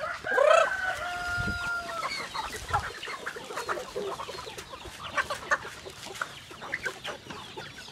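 A flock of native chickens clucking and calling as they crowd in to be fed. One long, held call stands out in the first two seconds, followed by many short clucks.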